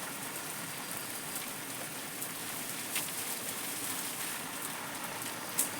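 Water gushing steadily from a pipe and splashing down, with a couple of faint ticks.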